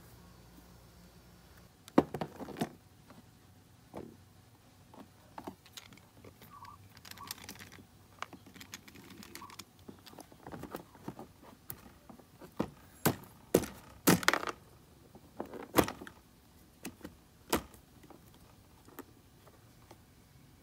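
Irregular clicks, clinks and knocks as a small sealed scooter battery is handled and set into a Honda Elite 50's plastic battery compartment, and its small metal terminal bolts are fitted. The loudest knocks come about two seconds in and again around fourteen seconds in.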